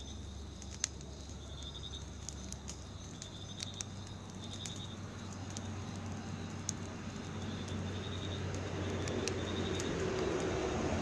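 A ring of fire burning on the ground, crackling with scattered sharp pops, its hiss growing louder in the second half. Crickets chirp in short high bursts in the background.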